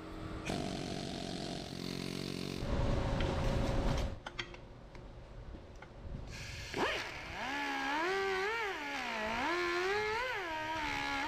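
A needle scaler chatters against the cast aluminium transmission case for about the first four seconds. From about seven seconds a die grinder with a carbide burr whines, its pitch rising and falling as the burr bites. Both are cleaning the broken clutch-fork pivot boss down to bare metal before welding.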